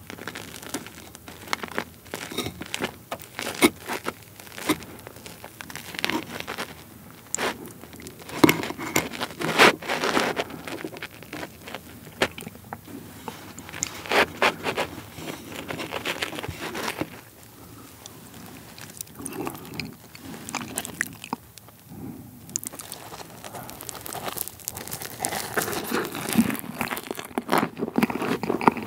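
Crisp meringue base of a pavlova crackling and crunching as it is cut with a knife and broken apart by hand, then bitten and chewed.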